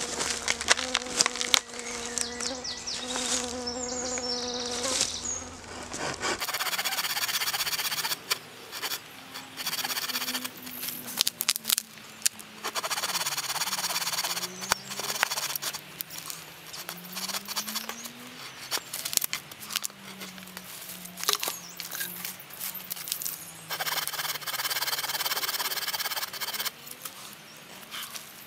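An insect buzzing close by, steady for the first six seconds and then wavering up and down in pitch. Over it come repeated scraping strokes of a knife cutting into a peeled wooden pole.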